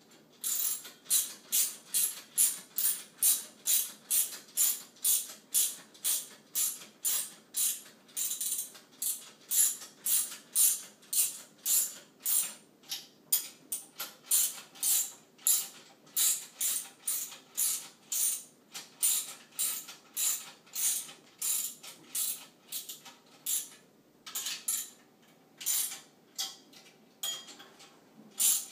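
Hand ratchet wrench clicking in repeated back-and-forth strokes, about two a second, running 10 mm locking nuts down onto the hub kit screws. There are a few short pauses near the end.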